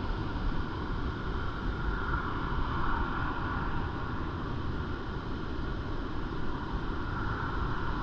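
Heavy surf from a large typhoon swell breaking along a sandy beach: a steady rush that swells now and then. Wind buffets the microphone.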